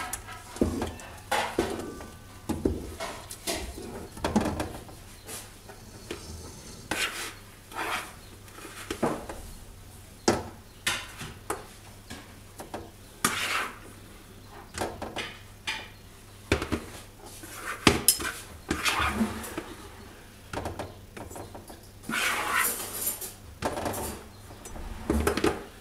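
A long wooden spoon stirring and scraping a thick mix of ground sesame and hazelnuts into sugar syrup in a large aluminium pot. The spoon knocks irregularly against the pot's sides.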